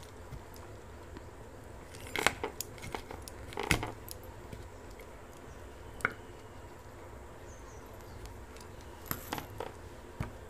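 Fingers mashing roasted okra, onion and chili in a small steel bowl, giving short clusters of sharp clicks and taps against the steel, a few times with quiet between.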